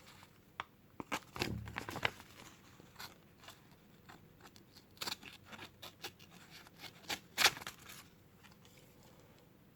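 Swiss Army pocket knife blade drawn through the coarse slot of a pull-through kitchen knife sharpener: a series of short, grating metal scrapes at uneven intervals, the last one about seven and a half seconds in.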